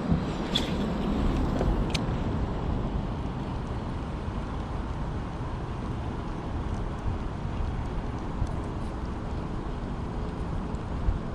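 Wind buffeting the microphone, a steady low rumble, with a few sharp clicks in the first two seconds.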